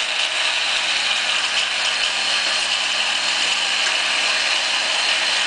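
Countertop blender running steadily, blending a smoothie.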